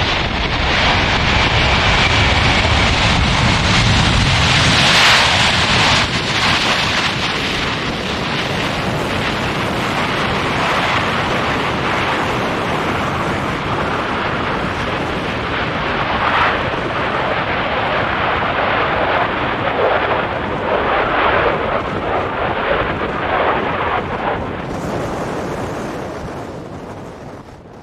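Jet engine noise from a landing Boeing 747-200, loudest in the first six seconds and then slowly easing. Crosswind buffets the microphone.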